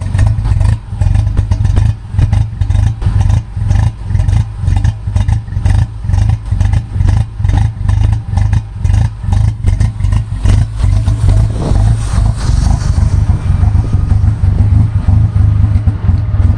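Engine running unevenly with a stumbling, pulsing rhythm whose loudness keeps dropping and picking up: the misfire being troubleshot. The sound shifts about twelve seconds in and runs with less hiss after that.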